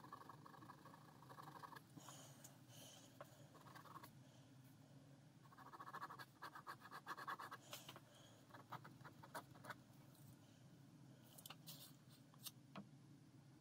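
Faint scratching of a ballpoint pen drawing on paper, in strokes lasting a second or two, with light clicks and ticks in between.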